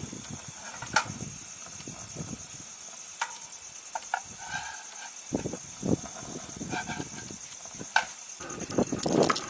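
Eggs frying in a pan, with a few sharp clinks of a utensil against the pan and a steady high-pitched buzz behind.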